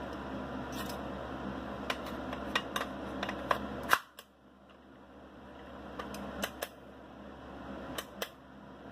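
Sharp clicks and clacks of a PMAG polymer magazine being seated in and released from an AR lower receiver fitted with a new ambidextrous magazine release, about ten clicks in all, the loudest about four seconds in. The release is one the owner finds touchy.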